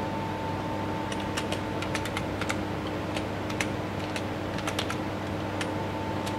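Computer keyboard being typed on: a run of quick keystroke clicks starting about a second in and going on in short bursts until near the end, as a short command is typed out.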